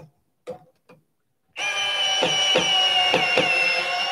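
A 12-volt cordless screwdriver's motor running with a steady whine for about three seconds, driving a 6-inch lag screw into a wooden beam through a nut setter bit, with a few knocks as it goes. A few light clicks come before the motor starts.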